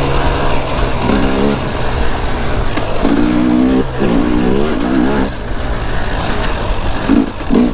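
KTM two-stroke dirt bike engine under way, revving up and falling back several times as the throttle is opened and closed.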